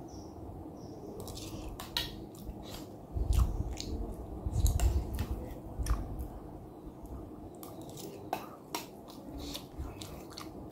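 Close-miked eating: chewing and mouth clicks, with a metal spoon clinking and scraping against a steel bowl. Several low thuds come between about three and six seconds in.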